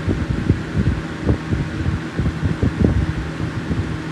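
McGraw Edison 12-inch box fan running on high speed: a steady hum with irregular low thumps. Its motor bearing is one the owner says gets rattly once the fan warms up.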